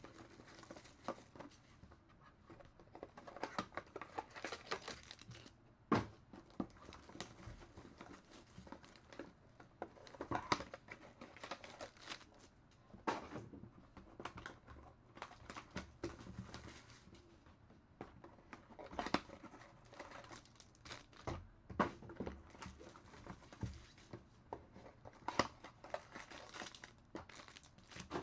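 Clear plastic shrink wrap being crumpled and torn off sealed boxes of trading cards: an on-and-off crinkling with scattered sharp knocks and clicks as the cardboard boxes are handled.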